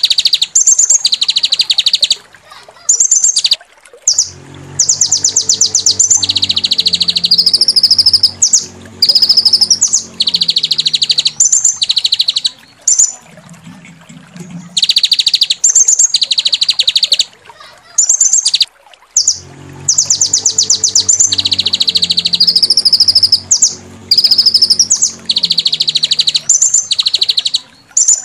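Songbird tutor recording: loud, rough, rapid-fire trills and chattering 'shot' phrases, high-pitched and broken by short pauses. The song repeats as a loop about every 15 seconds, and a low hum runs under some of the phrases.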